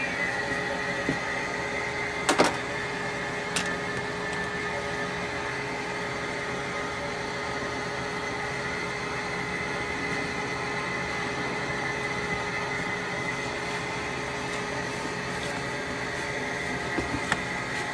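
Steady hum of kitchen equipment running, with two constant tones, and a sharp click about two and a half seconds in and a lighter one a second later.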